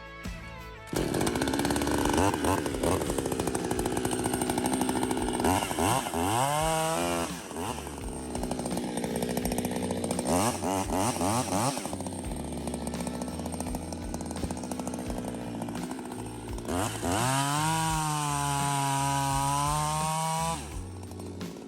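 Husqvarna 359 two-stroke chainsaw with a muffler mod, loud, running hard while bucking oak. Its pitch holds steady for stretches under load and rises sharply several times as the revs climb. It comes in abruptly about a second in and drops away near the end.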